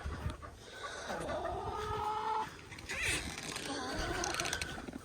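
Hens clucking, with a couple of drawn-out calls that slowly rise in pitch.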